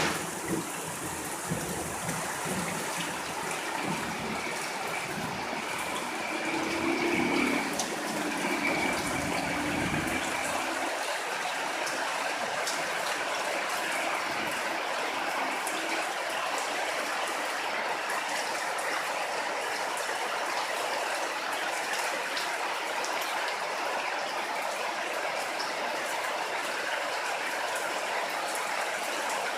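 Steady rain falling, a continuous hiss with scattered small drop ticks. A low rumble with a faint held tone sits under it for the first ten seconds or so, then stops.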